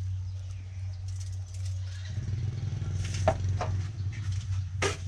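A few sharp clinks and knocks as a metal bowl of vegetables and a plastic seasoning cup are handled, over a steady low motor hum that becomes a louder, pitched engine drone about two seconds in.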